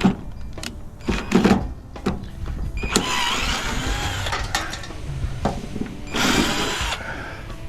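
A cordless drill backing screws out of a PTAC unit's sheet-metal cabinet. There are several sharp knocks and rattles, then a few seconds of squeaky, scraping whirring, with the loudest burst of drill noise about six seconds in.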